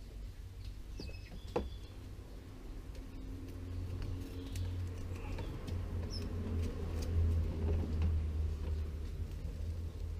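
Clear plastic cling film being pulled off its roll and stretched around a sneaker sole, crinkling and squeaking, with one sharp click about a second and a half in. A low rumble sits underneath, louder in the second half, and a few short bird chirps come through.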